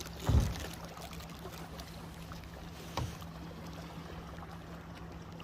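Kayak on open water: paddle and water noise, with a loud low thump just after the start and a smaller knock about three seconds in.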